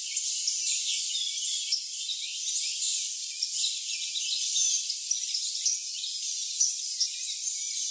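Morning chorus of songbirds chirping and trilling over a steady high cricket trill and hiss. All the low end is filtered away, so it sounds thin and high.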